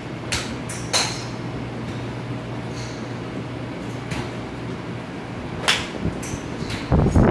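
Golf club faces striking balls at a driving range: several sharp clicks, one about a second in and the clearest one just before six seconds. They sit over a steady low hum, with a louder low thump near the end.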